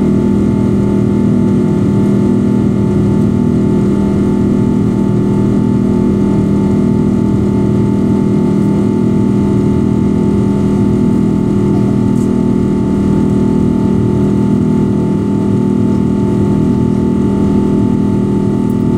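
Cabin noise of a Boeing 777-200 airliner in flight: a steady drone of engines and rushing air, with a strong low hum and a few fixed tones above it.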